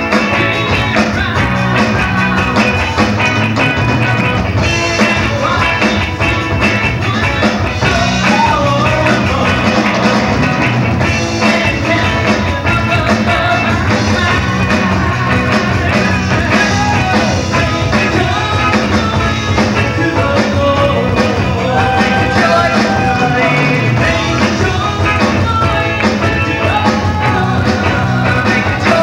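Christian rock band playing a loud, steady rock song on electric guitars, bass and drum kit.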